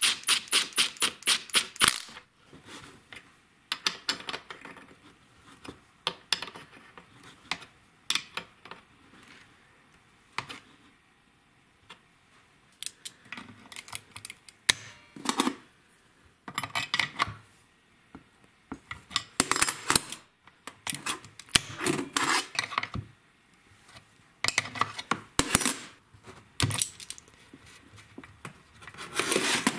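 A cordless impact driver hammering in a fast rattle for about two seconds as it spins a stud into a chainsaw's plastic case. Then scattered metal clicks and clinks of locking pliers and a nut being worked as the stud is tightened by hand.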